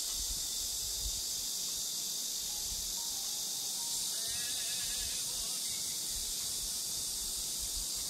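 Steady, high-pitched insect chorus, with a faint wavering bird call about four seconds in and low wind rumble on the microphone.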